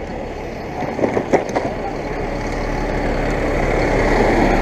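Engine of a sightseeing bus running, growing louder as the bicycle passes close alongside it, over steady street and riding noise. A few sharp clicks come about a second in.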